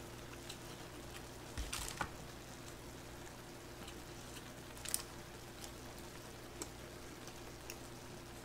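Quiet eating: faint wet chewing and mouth sounds with a few light clicks, over a steady low hum.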